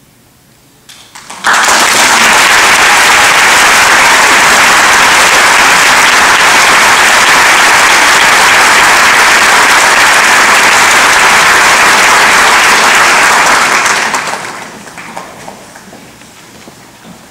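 Audience applauding, breaking out suddenly about a second and a half in, holding loud and steady, then dying away near the end.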